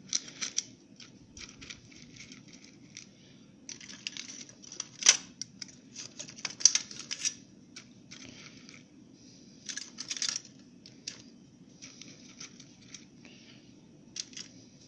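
Tongs lifting strips of orange peel from a plastic tub and dropping them into a tin can: scattered light scrapes, rustles and clicks, with a sharper click about five seconds in.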